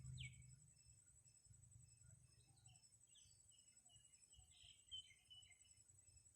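Faint birds chirping: short, scattered high calls, the first a quick falling chirp, over a low background rumble.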